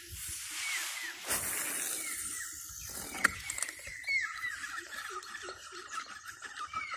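Spinning fishing reel being cranked to retrieve a homemade frog lure: a steady whir with rapid clicking that starts about four seconds in, after a few seconds of hiss and a sharp click.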